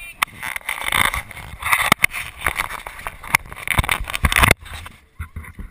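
Handling noise on a small action camera: fingers rubbing and gripping the housing right at the microphone, a loud scratchy scraping with many sharp knocks and clicks that cuts off suddenly about four and a half seconds in, then a few faint taps.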